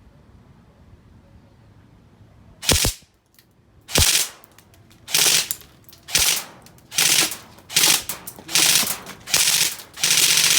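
Airsoft Mk18 gen 2 rifle firing on full auto. About eight short bursts come in quick succession, starting a little over two seconds in, and a longer burst follows near the end.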